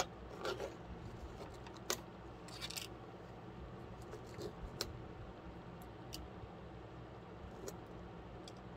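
Plastic snack pudding cup being handled and its foil lid peeled open. Scattered light clicks and ticks, with a brief crinkle a little over two and a half seconds in.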